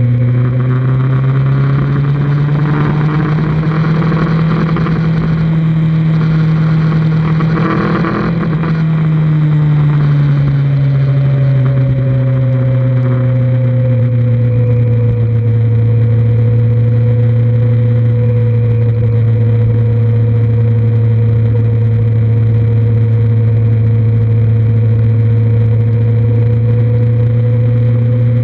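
2003 Kawasaki Z1000's inline-four engine running under way, heard from on the bike. The engine note climbs over the first few seconds and holds with a rushing noise on top. About ten seconds in it eases back to a steady, even cruise.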